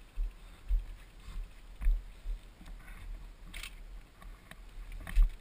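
Mountain bike riding a rough dry dirt singletrack, heard from a helmet camera: uneven low thumps and rumble from the trail, with short clattering clicks from the bike. A brief scrape or clatter comes a little after halfway, and the hardest thump comes near the end.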